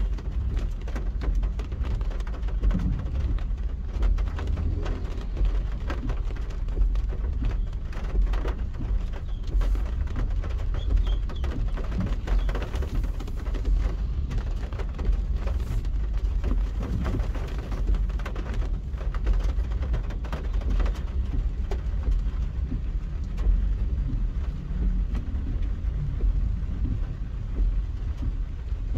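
Rain hitting a car as it drives in traffic: many small scattered ticks over a steady low rumble of engine and road.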